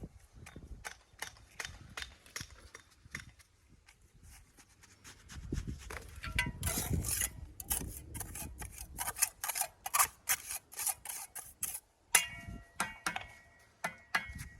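Stone being worked on a dry stone wall: a run of sharp clicks and knocks of stone against stone, denser and louder in the middle, with a few ringing strikes near the end.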